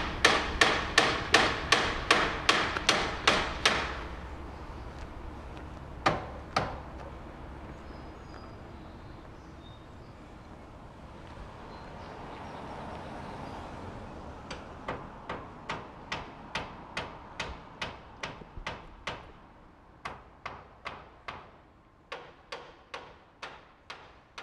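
Hammer strikes, about three a second, in runs of several seconds with short pauses between them. A vehicle passes in the quiet stretch in the middle.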